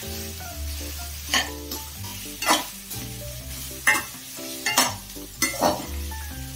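A metal spoon stirring and scraping saucy fried chicken around a metal kadai, with a frying sizzle underneath; about five sharp scrapes against the pan spaced a second or so apart.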